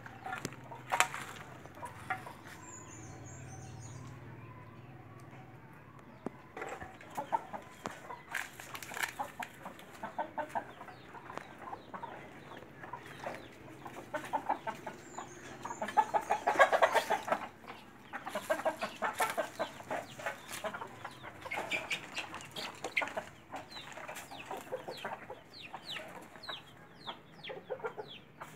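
Domestic chickens clucking in short, scattered calls, with a louder stretch of calling about halfway through.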